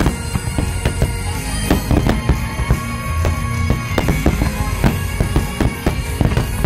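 Aerial fireworks shells bursting in a dense, rapid barrage, many sharp bangs every second, over music playing steadily underneath.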